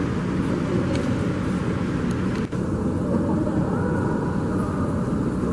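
Steady engine rumble from an apron during a Boeing 787-9 pushback with a tug attached, heard through terminal glass, with a brief dip about halfway through.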